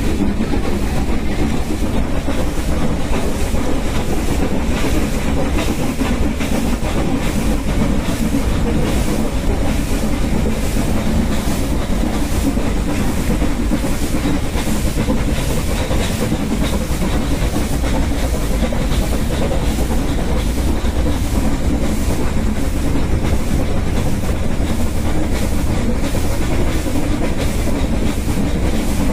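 Steam-hauled Nilgiri Mountain Railway train climbing a steep grade, heard from beside the coaches: a loud, steady rumble and clatter of the carriages with fast, regular clicking from the running gear.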